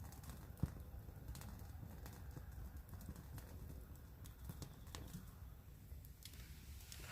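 Wood bonfire crackling: scattered sharp pops, the loudest about half a second in, over a low rumble.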